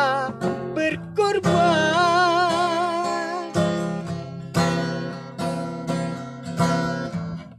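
An elderly man sings a slow hymn to his own acoustic guitar. Early on he holds the word 'berkorban' for about two seconds with a wavering vibrato, then the guitar strums on alone.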